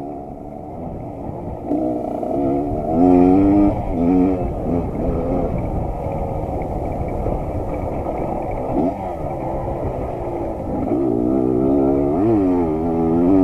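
Suzuki TS125 two-stroke single-cylinder engine running and being revved up and down several times, the pitch rising and falling with each blip.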